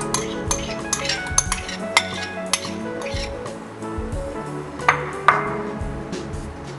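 Background music over repeated light clinks and taps of utensils against a bowl as ingredients are put in, with two louder knocks about five seconds in.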